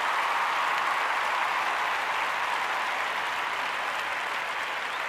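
Stadium crowd applause sound effect: a large crowd clapping steadily, easing off slightly toward the end.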